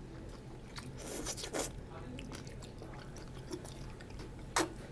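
Two people slurping and chewing black bean noodles (jjajangmyeon), with a sharp click near the end.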